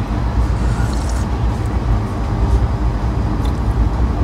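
Steady low rumble of a moving passenger train, heard from inside the coach by the window.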